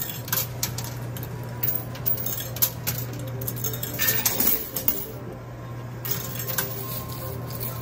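Quarters dropping and clinking onto a coin pusher machine's playfield, metal coins chinking against each other in irregular sharp clicks, over a steady low hum.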